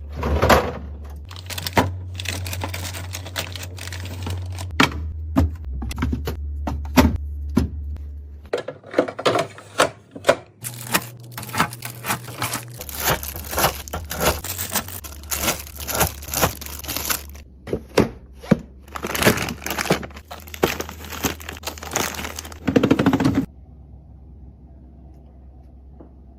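Fridge restocking: plastic packaging crinkling and tearing, with many quick clicks and knocks of containers and items being handled and set down, over a low hum. It all stops suddenly about three seconds before the end, leaving only a faint hum.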